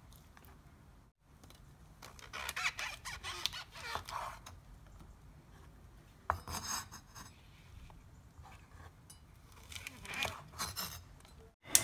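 White beech mushrooms being pulled apart by hand on a bamboo cutting board: soft rubbing and tearing of the stems in short bursts, with one sharp click. Near the end a knife cuts through the base of the clump.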